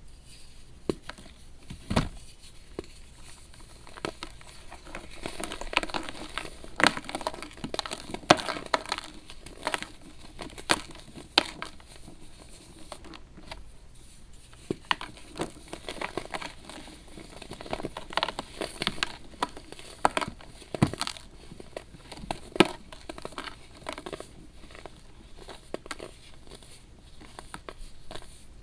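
Compressed baking soda being crumbled and crushed: irregular dry crunching and crackling, with scattered sharp snaps.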